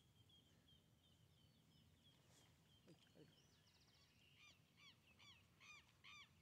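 Birds calling faintly: a thin high chirp repeated several times a second, then from about four and a half seconds in a louder series of calls, about three a second.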